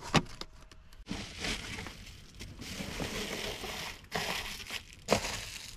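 Foil-faced bubble insulation crinkling and rustling as it is pressed and handled by hand, after a short sharp click near the start.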